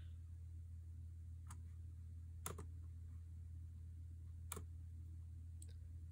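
Four sharp clicks on a laptop, spread unevenly over a few seconds, the middle two the loudest, over a steady low hum.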